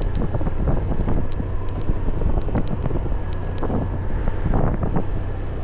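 Wind buffeting the microphone over the steady low drone of a moving vehicle.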